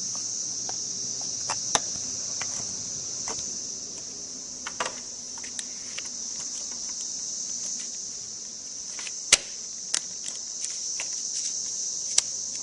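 Scattered clicks and light knocks of hands fitting a diagnostic cable connector onto the round diagnostic plug of a BMW K1200RS motorcycle, the sharpest clicks near the end. A steady high-pitched hiss runs underneath.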